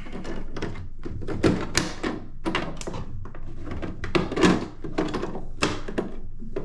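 A string of irregular plastic knocks and thunks, several a second, from hands fitting the cover flap onto the back of a computer monitor.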